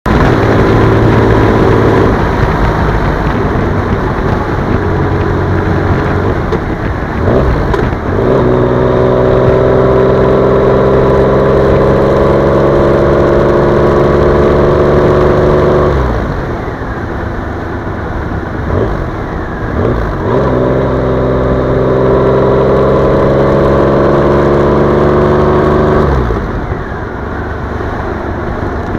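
Triumph Rocket 3 motorcycle's three-cylinder engine under way, with little wind noise. Twice it pulls under load, its note rising slowly for several seconds, then the throttle closes and it drops suddenly to a quieter running sound.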